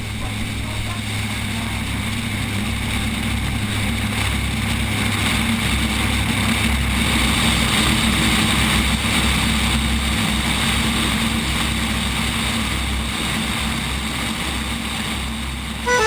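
Propeller aircraft of the aerobatic display team passing overhead, a steady engine drone that swells slowly to its loudest about halfway through and then fades.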